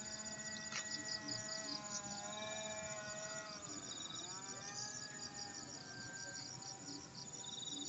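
Faint buzz of a small AP Hornet 0.15 glow engine on a model airplane in flight, its pitch dipping about halfway through and then climbing back. Crickets chirp steadily over it.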